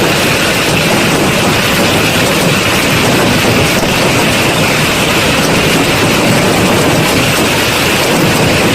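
Dense, steady noise of a heavy hail and rain downpour.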